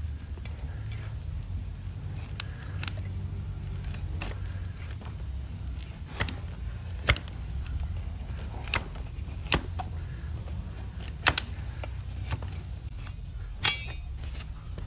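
Broad flat farrier's blade paring a donkey's hoof horn against a wooden block: irregular sharp clicks and scrapes, several louder ones through the second half, over a low steady rumble.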